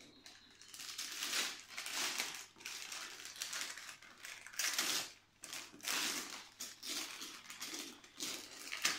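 Gift wrapping paper being torn and crumpled by hand as a present is unwrapped: a run of irregular rips and rustles.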